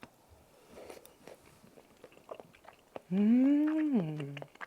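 Faint wet chewing and mouth clicks of eating, then about three seconds in a woman's drawn-out hummed 'mmm', rising and then falling in pitch: a sound of relishing the food.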